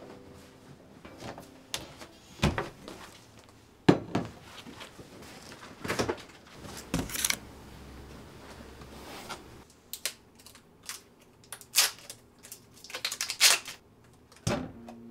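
A string of sharp clicks, knocks and plastic crackles from handling a plastic food tub and a glass mixing bowl on a kitchen counter. The loudest knock comes about four seconds in, with a quick run of clicks near the end as the tub is emptied into the bowl.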